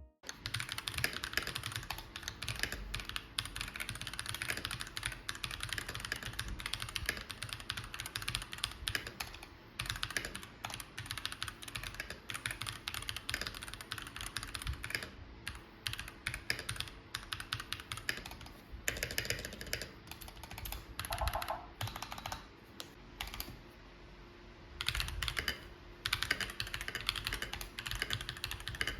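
Fast typing on a NuPhy Halo 65 mechanical keyboard with linear switches: a dense run of key clacks, broken by a few short pauses.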